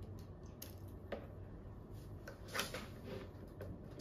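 Faint handling noise of a coiled power cable being unwound and handled, with a few light clicks and knocks over a steady low hum.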